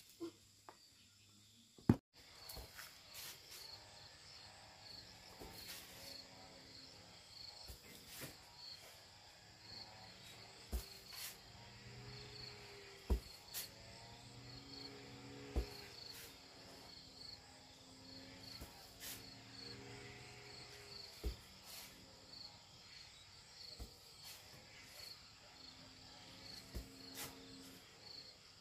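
Insects, crickets, chirping in a steady high pulsing trill, with sharp taps or clicks every few seconds over a faint background.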